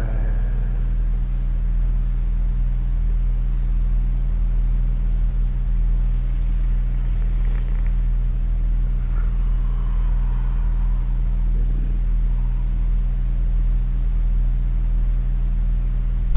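A steady low droning hum under faint hiss, with faint wavering higher tones in the middle. It cuts off suddenly at the very end.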